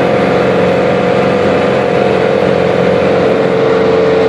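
Single-engine light aircraft's engine and propeller running steadily at full takeoff power, heard loud from inside the cockpit as the plane rolls down the runway. It is a constant, even drone at a steady pitch.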